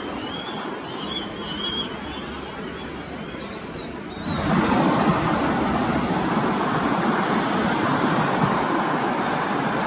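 MiG-29 jet engines, a steady rushing roar that jumps abruptly louder about four seconds in.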